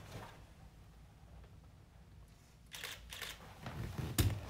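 DSLR camera shutter firing twice, a little before and just after three seconds in, with rustling handling noise and a thump near the end.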